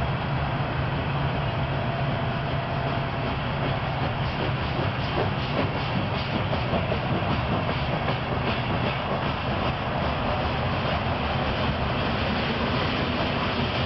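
Loaded covered hopper cars of a grain train rolling past: a steady rumble of steel wheels on rail, with scattered clicks.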